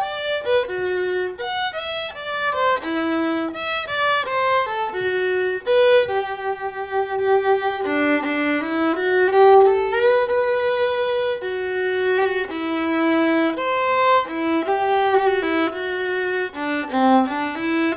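Background music: a violin playing a melody.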